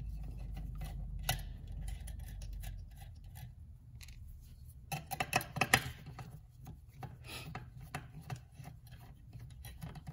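Small metal clicks and scrapes as the 5/16 nuts are worked off the gauge studs on a steel instrument cluster housing. The sharpest, loudest run of clicks comes about five to six seconds in, with lighter ticks after.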